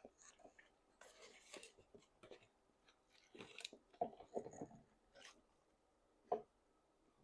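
A person chewing food with the mouth: irregular smacks and clicks, the loudest about four seconds in and again a little after six seconds.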